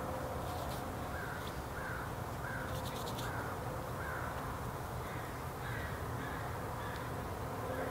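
A bird calling over and over, a run of short calls about two a second starting about a second in, over a steady low background noise.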